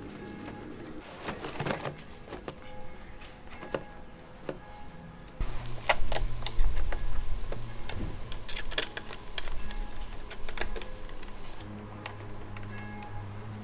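Clicks, taps and light knocks of hands fitting a metal pipe clamp around a grey plastic pipe, busiest and loudest from about five and a half seconds in. Steady background music runs underneath.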